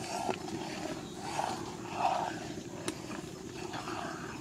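Two kilos of milk heating in a large iron wok over a wood fire, giving a steady low rumbling hiss, while a ladle stirs it with repeated scraping swishes. A single sharp clink comes about three seconds in.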